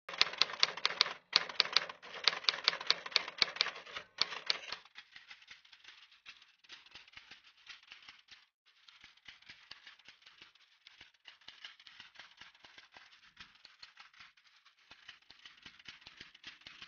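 Typing sound effect: rapid key clicks keeping pace with text being typed on screen. The clicks are loud and dense for about the first five seconds, with two short breaks, then carry on fainter and sparser.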